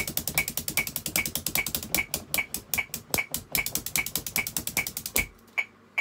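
Red bundled-rod sticks playing fast, even sixteenth notes on a Gretsch practice pad against a metronome clicking at 150 beats a minute. The playing stops about five seconds in, and the metronome carries on clicking alone.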